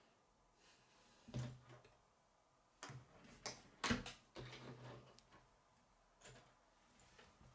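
Scattered light clicks and knocks from plastic K'nex pieces being handled, about half a dozen spread over several seconds, some with a soft low thud.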